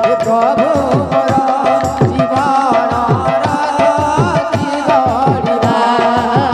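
Kirtan music: hand-played barrel drums in a fast, busy rhythm, many bass strokes sliding down in pitch, with a wavering sung melody over steady held notes.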